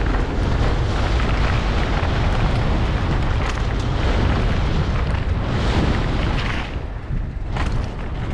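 Wind rushing over a helmet-mounted action camera's microphone as a mountain bike descends a dirt trail at speed, a loud steady rumble with tyre and trail noise and a few sharp knocks near the end.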